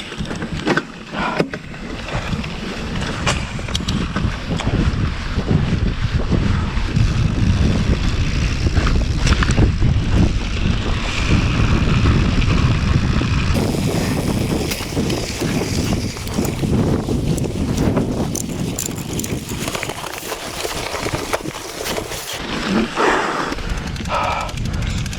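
Mountain bike riding fast downhill on a dirt trail: steady wind rushing over the camera microphone and tyre noise, with frequent knocks and rattles from the bike over bumps.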